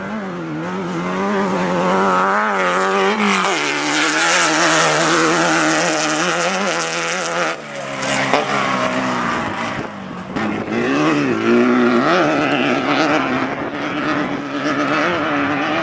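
Air-cooled VW 1776 engine of a Class 12 off-road race car at full race effort, its revs rising and falling quickly and unevenly. The engine note dips briefly about halfway through and again a couple of seconds later before coming back up.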